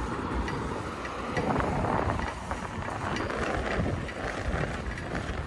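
Wind buffeting the microphone while riding a bicycle, with steady road and tyre rumble and a few faint ticks from the bike.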